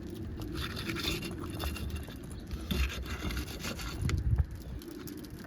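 Irregular scraping and crackling against asphalt roof shingles, with a few sharp ticks, loudest about four seconds in.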